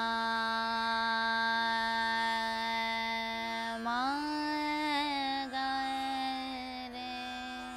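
A woman sings sargam in Raag Bageshri in Hindustani classical style over her own tanpura drone. She holds a long Sa, glides up to a higher note about four seconds in and sustains it, sinking slightly near the end.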